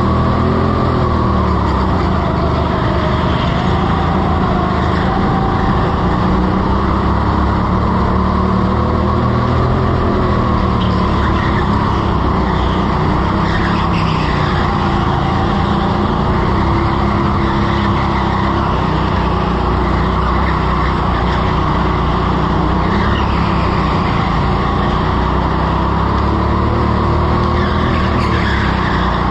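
Indoor go-kart's engine, heard from on board, revving up and falling back over and over as the kart accelerates and brakes through the corners. Its tyres squeal briefly on the polished floor in several of the turns.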